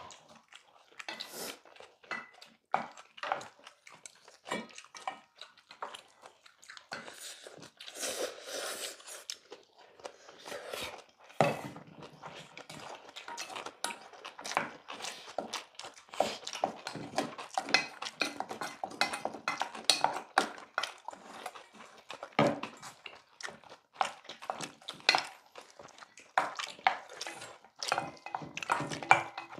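Chopsticks and spoons clinking and scraping against stainless steel bowls as bibimbap is mixed and eaten, with chewing mixed in; many irregular small clicks.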